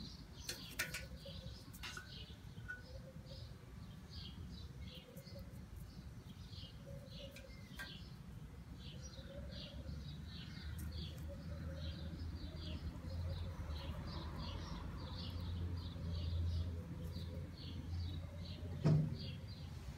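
Outdoor ambience carried by a steady run of short high chirps, about two a second, over a low rumble that grows louder in the second half; a single sharp thump near the end.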